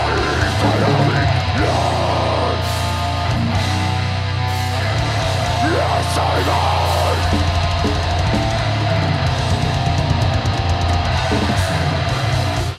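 Live heavy metal band playing loud: distorted electric guitar and drum kit, with the vocalist screaming into the microphone near the start and again about halfway through.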